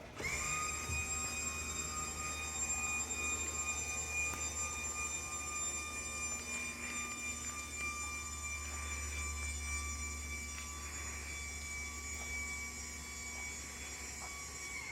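Electric pump motor running with a steady high whine over a low hum, spinning up just as it starts.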